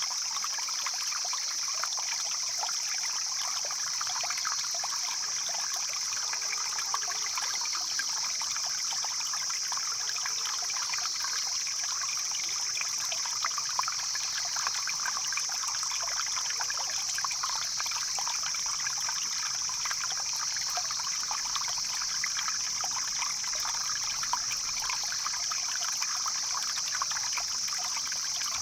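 Stream flowing steadily, a dense run of small splashes and trickles, with a steady high-pitched hiss above it.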